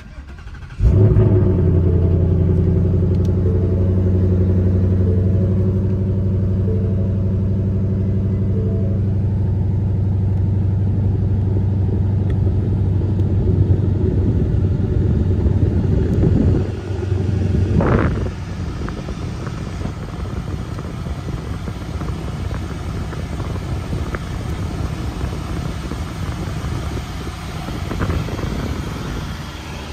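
2021 Ford Mustang GT's 5.0-litre V8 started with the push button, catching with a sudden loud burst about a second in and then idling steadily from inside the cabin. About 16 seconds in the idle drops to a lower, quieter note, with a brief rise and fall in pitch near 18 seconds.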